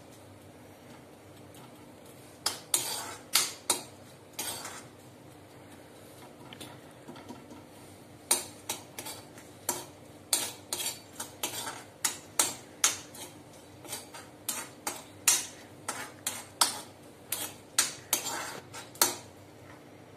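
A spatula scraping and knocking against a metal kadhai as chopped almonds are stirred and roasted in a little oil. A few strokes come two to four seconds in, then a steady run of strokes, about one or two a second, from about eight seconds in until just before the end.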